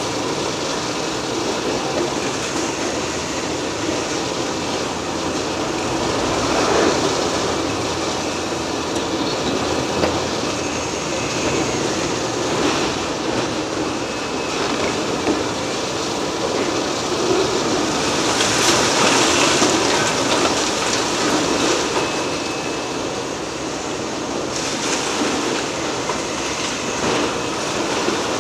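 Liebherr R 980 demolition excavator breaking down a concrete building: continuous grinding, crunching and scraping of concrete and steel debris, with a louder burst of crunching about two-thirds of the way through.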